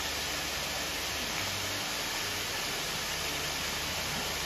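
Waterfall rushing steadily, two streams spilling over a rock ledge into a plunge pool.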